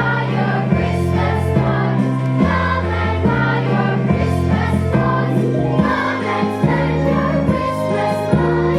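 Christmas music: a choir singing over a bass line that steps from note to note about once a second.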